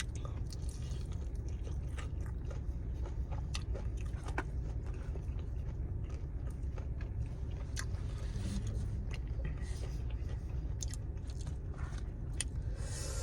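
Close-up eating sounds of fried chicken wings being bitten and chewed, with irregular small clicks and crunches, over a low steady rumble.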